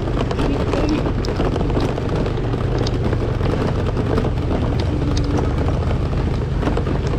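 Motor scooter engine running steadily while riding a rough dirt track, with a few light knocks and rattles from the bumps.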